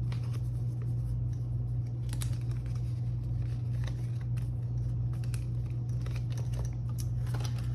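Paper envelopes and savings-challenge cards being handled, with soft rustling and scattered small clicks, over a steady low hum.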